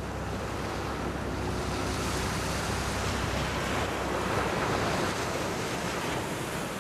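Ocean surf washing up a sandy beach: a steady rush of breaking waves and foam that swells a little about four seconds in.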